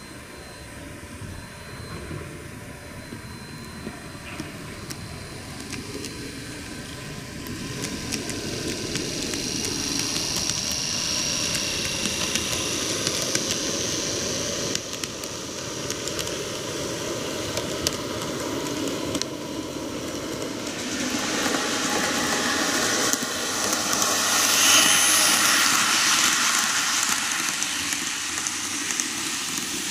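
TOMIX N-gauge model trains, a Meitetsu 8800 Panorama DX set and a KiHa 8200 set, running past: small motors whining, with wheels ticking over the rail joints. The sound grows louder as the cars pass close and is loudest about 25 seconds in.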